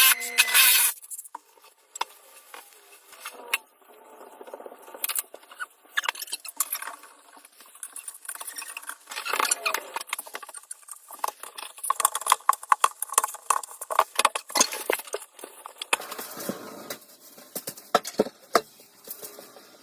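A loud, steady noisy sound cuts off about a second in. Irregular clicks, taps and scrapes of hand work follow, busiest in the middle.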